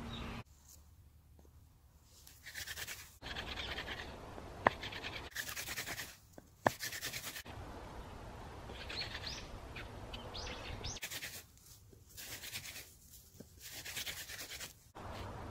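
Wooden fire-drill spindle rubbing against a hearth board in bursts of rapid scraping strokes, with pauses between the bursts and two sharp clicks in the middle.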